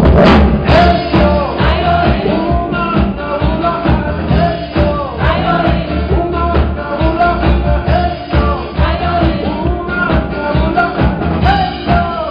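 Live band playing an upbeat pop-rock song with a male lead vocal; the full band with drums comes in loudly right at the start, after a strummed guitar intro.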